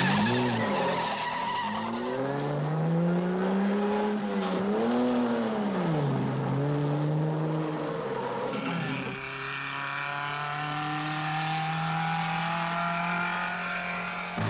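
Rally car engines revving hard on a mountain climb, the pitch rising and falling several times as the drivers work through the gears, then settling into a steadier engine note from about nine seconds in.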